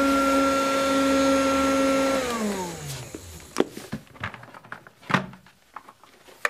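Canister wet-and-dry vacuum cleaner running steadily, then switched off about two seconds in, its motor winding down in a falling whine. A few clunks and knocks follow as the canister's lid is handled and lifted off.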